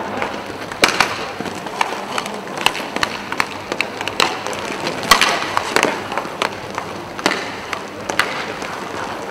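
Inline hockey skate wheels rolling on a plastic sport-court floor, a steady hiss, with scattered sharp clacks of sticks hitting the puck and each other.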